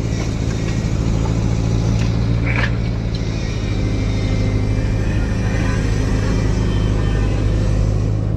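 Excavator engine running steadily with a low, even hum, with a brief higher-pitched sound about two and a half seconds in.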